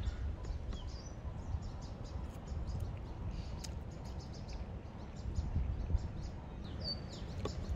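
Outdoor wind buffeting the microphone as a steady low rumble, with a few faint high bird chirps over it and one short chirp near the end.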